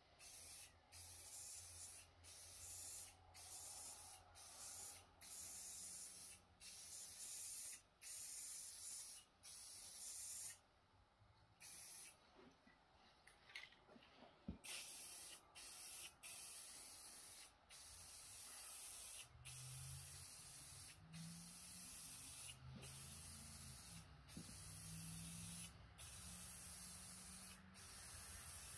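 Aerosol spray-paint can spraying a coat onto a truck sun visor in repeated hissing passes. Each pass lasts about a second with short breaks between, and there is a longer pause about ten seconds in.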